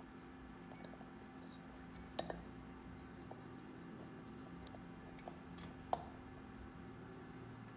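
Faint metal clicks and taps as the aluminium oil filter cover of a Honda CBX engine is handled and seated against the crankcase: a quick pair about two seconds in and a sharper click about six seconds in, over a steady low hum.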